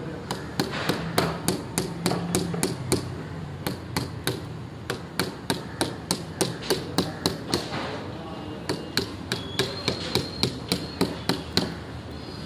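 Hammer striking a chisel in quick, even blows, about two or three a second, as the chisel is driven along a crack in the wall of a black Sintex plastic water tank.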